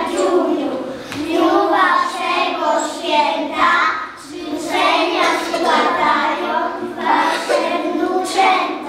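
A group of young children singing together in unison, in short phrases of a second or two with brief breaks between them.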